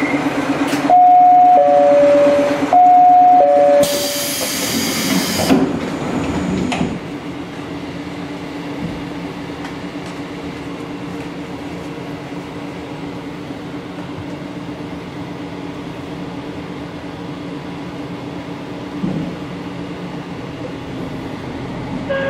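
Two-note chime sounding twice, high then low, followed by a sharp hiss of compressed air as the doors of a KiHa 54 diesel railcar work. After that the railcar's diesel engine idles steadily.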